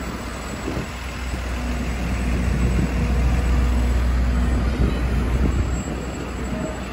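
A large motor vehicle's engine rumbling as it rolls slowly past in the parade, growing louder about two seconds in and easing off after about five seconds.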